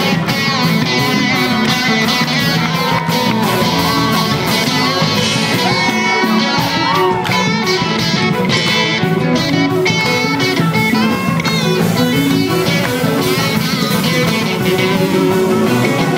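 Live rock band playing loudly: electric guitars over bass guitar and drums, with a guitar line sliding up and down in pitch.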